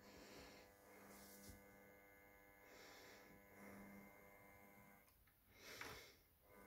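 Near silence: the faint steady hum of a Hornby OO gauge Lord Nelson model locomotive's electric motor running at crawling speed, with a few soft breaths close to the microphone.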